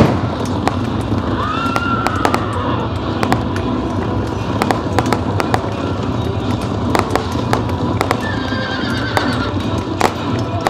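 Horse whinnying twice over a steady din of sharp clacks and knocks from a staged battle: one call rises and falls about a second and a half in, and another falls away near the end. A loud bang, like a firecracker, comes right at the start.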